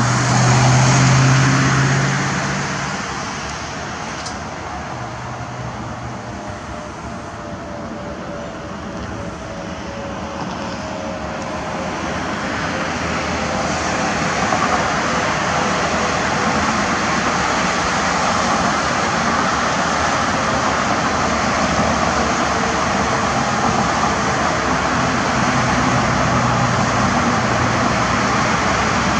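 Airplane flying over: a steady rushing engine drone that grows louder from about eight seconds in, with a faint tone sliding slowly down in pitch.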